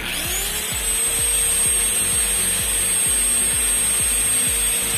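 A motor-driven chuck spins an angle grinder armature up to speed, its pitch climbing over the first half second, then runs steadily with a high whine.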